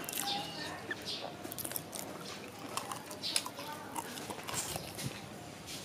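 Crunching and chewing of crispy deep-fried chicken legs, with repeated crackly bites.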